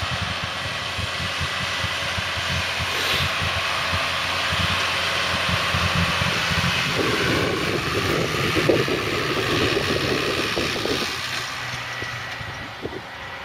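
Heavy farm machinery running during silage harvesting: a steady engine rumble with a broad hiss. It grows louder and rougher about halfway through, then eases off near the end.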